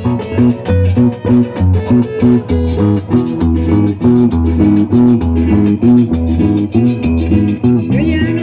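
Carranga music played instrumentally: plucked guitars over a bass line with a steady dance rhythm.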